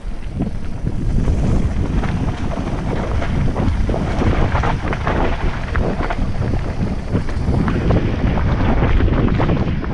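Wind buffeting an action camera's microphone as a mountain bike descends a fast dirt and gravel trail, with many short rattles and clicks from the bike and its tyres running over loose stones.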